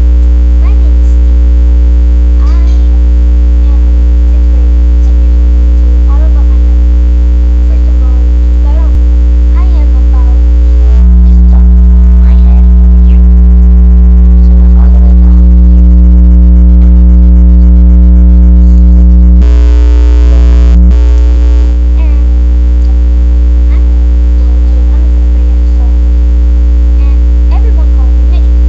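Loud, steady electrical mains hum in the recording, a deep drone with a stack of higher steady tones above it; a little past a third of the way in one of the tones grows stronger for several seconds, and a brief hiss comes in around two-thirds of the way through.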